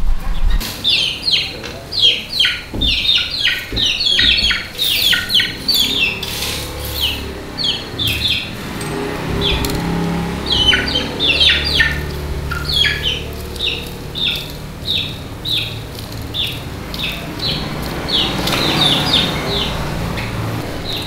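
Birds chirping in a dense, rapid run of short high chirps, with a low steady hum underneath from partway through and a few light clicks.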